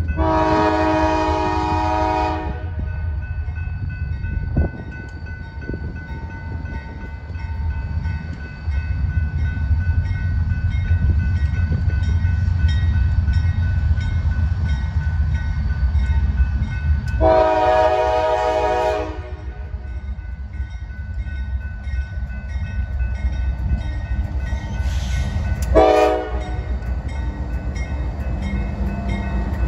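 Norfolk Southern diesel locomotive approaching, its air horn sounding the grade-crossing signal in a chord of several tones: a long blast at the start, another long blast about 17 seconds in, a short one about 26 seconds in, and a last long blast starting near the end. The locomotive's diesel engine runs steadily underneath and grows louder as it draws near.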